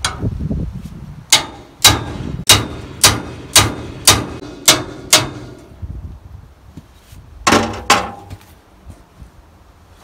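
Sharp metal clanks at the wrench on the arbor nut of a circle sawmill blade, eight in a row at about two a second, then two more a couple of seconds later: the nut is being knocked loose to take the blade off the shaft.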